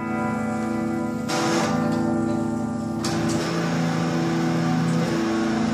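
Solo amplified guitar played through a pedalboard: sustained chords ringing on, with new chords struck about a second in and again about three seconds in.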